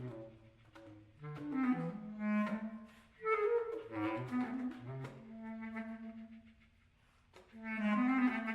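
Clarinet playing a contemporary art-music piece in short, broken phrases. A long low note is held in the middle, and a louder note swells near the end.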